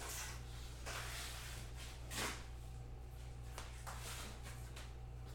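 Trading cards being handled at a table: a few soft brushes and rustles, the clearest about two seconds in, over a steady low electrical hum.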